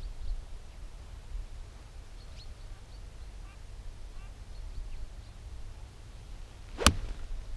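A golf iron striking the ball on a full fairway shot: one sharp click near the end, over a low steady rumble and a few faint high chirps.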